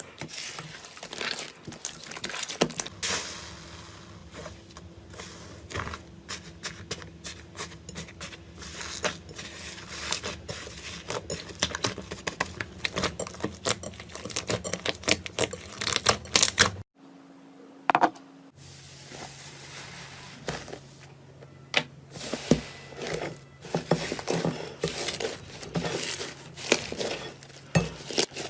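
Slime squished and pressed by hand, giving dense small crackles, pops and clicks over a faint steady hum. Near the middle the sound breaks off for a second or two, then carries on.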